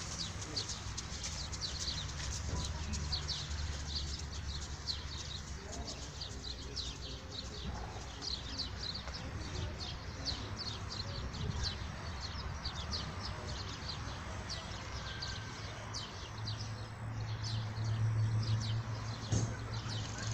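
Small birds chirping in rapid, continuous short notes, over a low hum that grows louder near the end.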